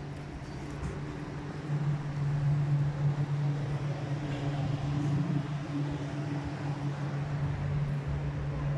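A steady low mechanical hum over the general noise of a city street with traffic, a little louder from about two seconds in.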